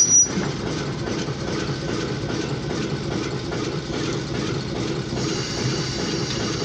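Oil Creek & Titusville Alco diesel locomotive No. 85 running light past the crossing: a steady diesel rumble with wheel-on-rail noise, muffled through the car's windshield. A short knock comes right at the start.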